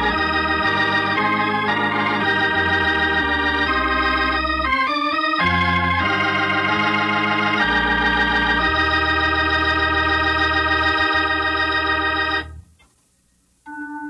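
Organ music: full, sustained chords that change every second or so, stopping suddenly about twelve seconds in. After a moment of silence, a few quieter single notes begin near the end.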